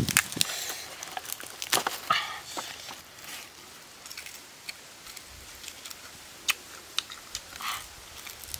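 Grilled chicken being pulled apart by hand and eaten: crackling tears and wet clicks from the meat and skin, then bites, chewing and lip smacking. The tearing is loudest in the first couple of seconds; later there are only scattered clicks.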